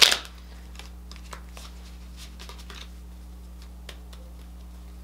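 Tarot cards handled and shuffled in the hands: faint, irregular soft clicks and taps over a steady low electrical hum.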